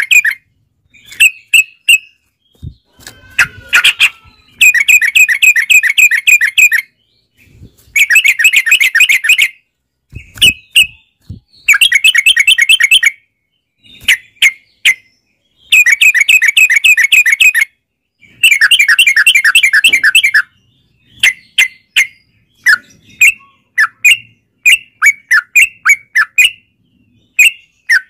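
Sooty-headed bulbul (trucukan) singing: bursts of rapid, chattering notes lasting one to two seconds each, separated by short gaps and single calls. Near the end it changes to a run of separate quick notes, about two a second.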